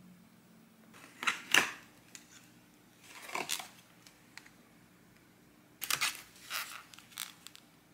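Takeaway packaging being handled: a paper menu card and cardboard box rustling, then aluminium foil trays crinkling, in several short bursts with the loudest about a second and a half in.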